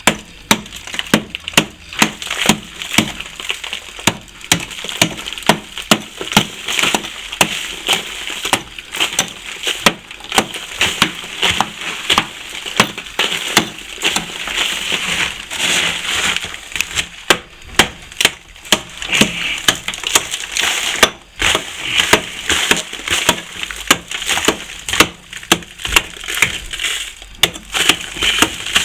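Old plaster being chipped and raked out of a wall crack with a hand tool, opening the crack up for filling. Irregular sharp knocks about once a second, with scraping and crumbling between them.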